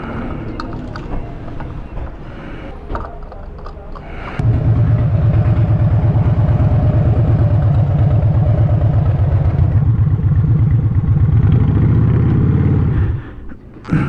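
A Harley-Davidson V-twin motorcycle engine comes in suddenly about four seconds in and runs loud with a fast, even pulsing beat, rising slightly just before it cuts off about a second before the end. Before it there are only a few clicks and knocks.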